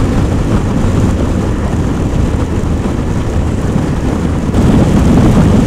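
2016 Can-Am Spyder RT three-wheeler cruising at about 55 mph, heard from the rider's seat: a steady low rumble of engine and wind, getting a little louder about four and a half seconds in.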